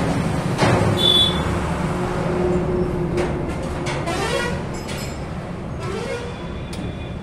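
A vehicle engine idling with a steady low hum, with a few short knocks and creaks over it.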